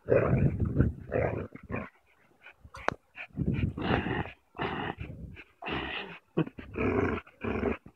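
Pit bull-type dogs growling in short repeated bursts while pulling on a rope tug toy: play growling during a tug-of-war.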